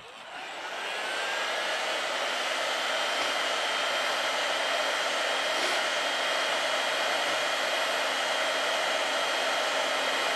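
Handheld hot-air heat gun blowing steadily, coming up to speed over about the first second, with a faint high whine on top of the rush of air.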